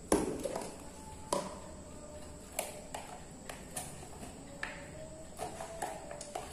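Hand-eating sounds: irregular sharp clicks and smacks of chewing, with fingers working rice on a paper-and-banana-leaf wrapper. The loudest click comes right at the start and another just after a second in, over a faint steady high whine.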